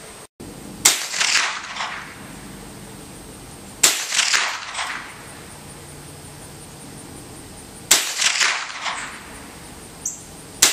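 Winchester Model 74 semi-automatic .22 LR rifle, made in 1948, fired four times a few seconds apart, each crack trailing a short echo.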